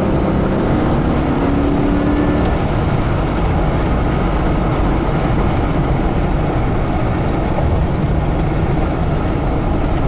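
Cab noise of a 2005 Chevy 2500 HD pickup driven at highway speed on a hard pull: a steady engine and road drone. A faint engine tone fades out about two and a half seconds in.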